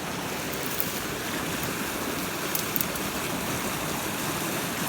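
Brook water flowing steadily, a continuous rushing noise with no pitch.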